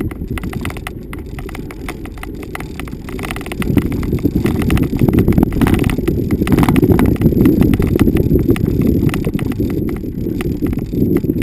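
A vehicle driving over bumpy off-road ground: a low rumble full of rapid rattling knocks and jolts, growing louder about four seconds in.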